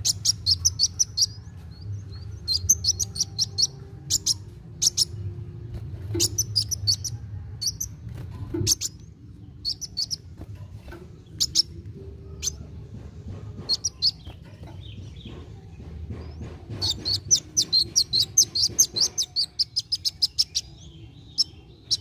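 Male Van Hasselt's sunbird (kolibri wulung) singing: quick runs of sharp, high chips broken by single chips, with a longer, fast chattering run near the end.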